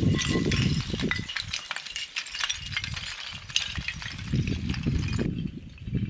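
Loose flat scree rocks clinking and clattering against each other under a climber's steps and hands as he descends over them. There are many small sharp clinks, and a low rumble underneath that grows near the end.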